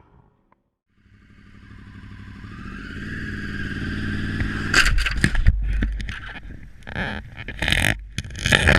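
Motorcycle engine rising in pitch and growing louder as the bike accelerates. It is followed, from about five seconds in, by a string of loud bangs and rushes of noise.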